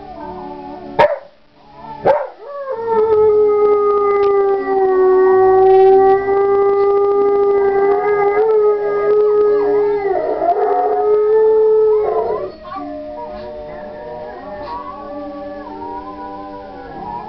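Dog howling one long, loud howl whose pitch wavers slightly, starting about two and a half seconds in and breaking off about twelve and a half seconds in. It is howling along with a film soundtrack, and quieter soundtrack music carries on after it. Just before the howl there are two short, sharp, loud sounds about a second apart.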